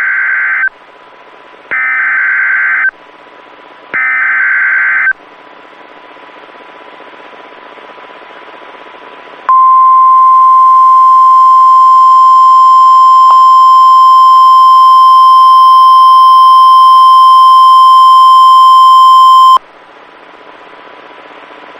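NOAA Weather Radio Emergency Alert System signal: three short, screechy bursts of SAME header data about two seconds apart, a few seconds of radio static, then the steady 1050 Hz warning alert tone held for about ten seconds before it cuts off suddenly. Radio hiss runs underneath throughout.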